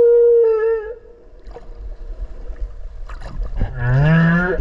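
Humpback whale song heard underwater: a held, pitched call that ends about a second in, then after a short gap a lower call rising in pitch near the end.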